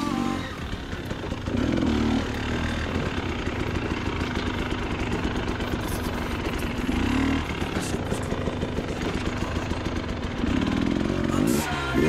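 Two-stroke enduro dirt bike ridden slowly over rough ground, its engine running low and uneven, with three short bursts of throttle about two, seven and eleven seconds in.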